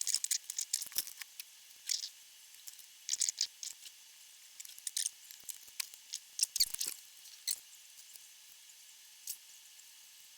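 Irregular sharp clicks and ticks of small hand tools at work on a valve amplifier chassis, wire cutters snipping component leads during a recap. The loudest click comes right at the start; they thin out after about eight seconds.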